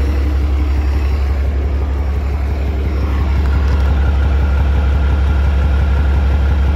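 A 12-valve 5.9 Cummins inline-six turbo diesel idling steadily in a Dodge Ram 3500 while it warms up after a rebuild, with a deep even drone. A faint steady high whine comes in about three seconds in.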